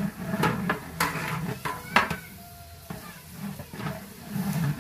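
A long-handled ladle stirring a thick mix in a large metal pot, clinking and scraping against the pot's sides in a string of sharp knocks. The loudest knock comes about two seconds in.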